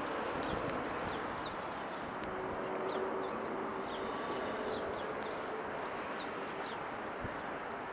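Jet airliner flying low overhead, its engine noise a steady rush that eases slightly, while a small bird chirps again and again in short, high, falling notes.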